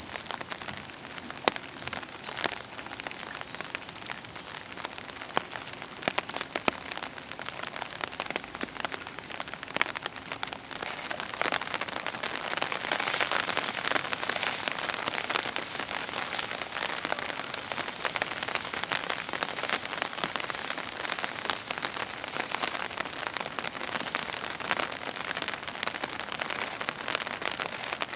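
Steady rain falling, with many separate drops striking close by as sharp little ticks; it grows louder about eleven seconds in.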